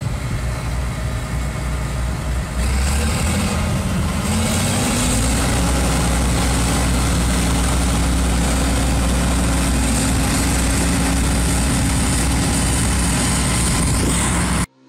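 John Deere 9680i combine harvester running with a steady engine hum. A few seconds in its pitch rises, then holds. The sound cuts off suddenly near the end.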